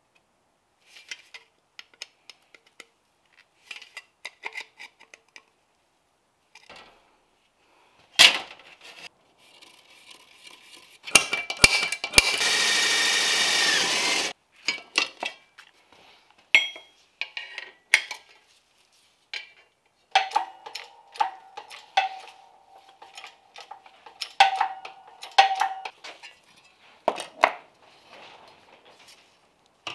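An electric drill boring through a bent steel repair panel, running steadily with a high whine for about three seconds in the middle. Around it come small scratching ticks, a single knock, and clinks and ringing of steel parts and tools handled on the bench.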